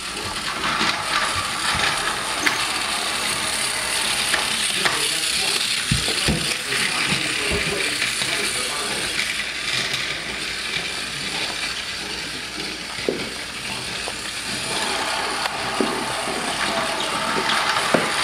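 Motorised Thomas toy train running on blue plastic track: a steady whirring and rattling of its small motor and gears, with scattered clicks of plastic pieces.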